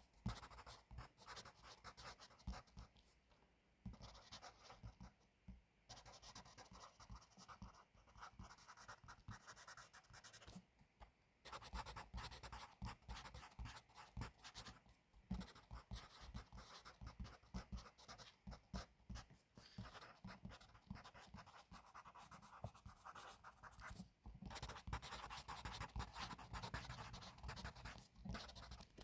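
Pencil writing on paper: a faint, rapid scratching of the pencil tip, in stretches broken by a few short pauses.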